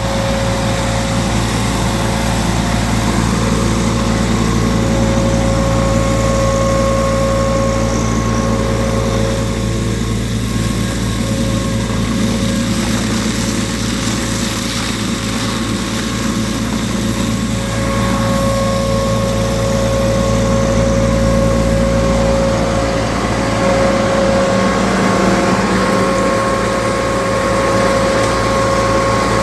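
Hazelnut harvesting machine driven by a Massey Ferguson 135 tractor, running steadily: a continuous engine hum with a steady high whine over it.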